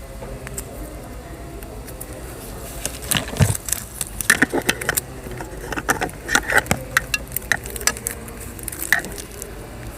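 A replacement glove box lock cylinder being handled, giving a run of sharp metallic clicks and rattles from about three seconds in to about nine seconds, over a steady low hum.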